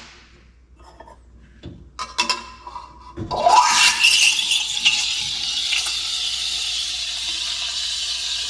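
A couple of light clicks, then an espresso machine's rotary pump starts about three seconds in: its whine rises in pitch as the motor spins up and then runs steadily, with water hissing through the group head as the shot begins.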